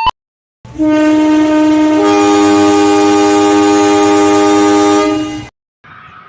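Commuterline electric train's horn sounding one long, loud blast as a greeting. A second, higher tone joins about a second after it starts, and the two hold together as a chord until the horn cuts off.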